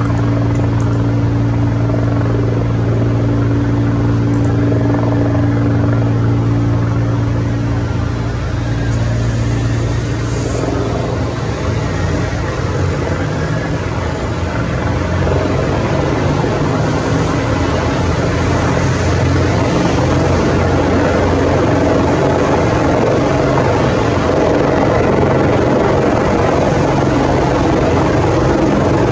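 Bell 412EP twin-turbine helicopter at full rotor speed, a steady hum of rotor and turbine tones. About ten seconds in it lifts off, and the sound turns rougher, with more blade noise, as it hovers and climbs away.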